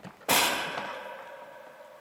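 A single sharp metallic clang, about a third of a second in, with a ringing of several steady tones that dies away slowly.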